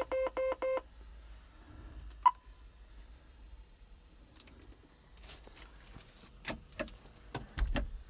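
Four quick electronic beeps from the John Deere 6120M tractor's cab electronics while the GreenStar 3 display loads settings at power-up. About two seconds later comes a single sharp ping, and a few clicks and knocks follow in the last three seconds.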